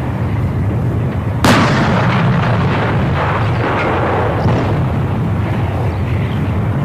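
PzH 2000 155 mm self-propelled howitzer firing: one sharp report about a second and a half in, followed by a long rolling tail, over a steady low rumble.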